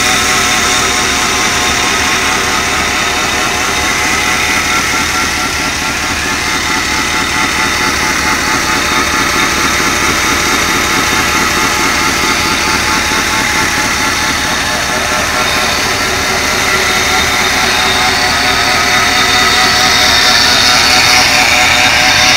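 Chevy C1500 pickup's small-block V8 running steadily at idle, getting slightly louder near the end.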